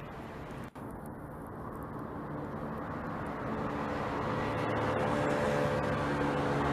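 Road traffic noise that grows louder over a few seconds, with a steady engine hum coming in about halfway through.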